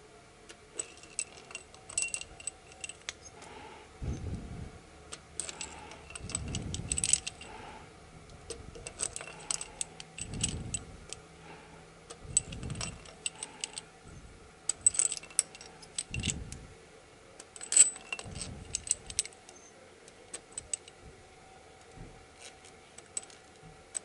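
Steel cylinder-head bolts clinking and jangling against each other in a hand as they are drawn out of a VAZ-21126 engine's head one after another, with repeated sharp metal ticks in bouts and a few dull handling thumps between them.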